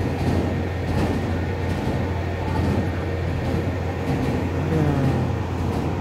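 Steady low mechanical rumble, even in level, like a large engine or machine running.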